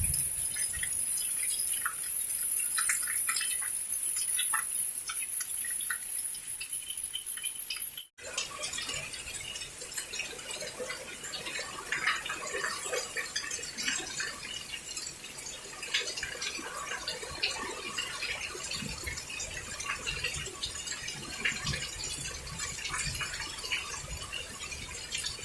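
Heavy rain falling, with drops pattering and dripping: sparse drips for the first eight seconds, then after a brief dropout a dense, steady patter of rain.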